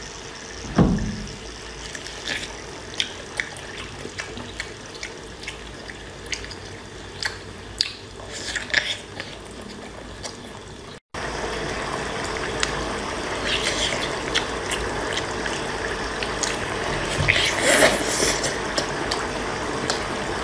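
Close-up wet eating sounds: chewing and slurping of sauce-covered seafood, heard as a string of short wet smacks and clicks over a steady hiss. About eleven seconds in the background hiss turns louder.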